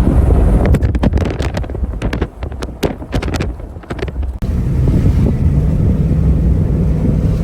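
Strong wind buffeting the microphone over a low vehicle rumble, with a rapid flurry of sharp cracks and taps through the first four seconds that stops abruptly, leaving a steady low rumble.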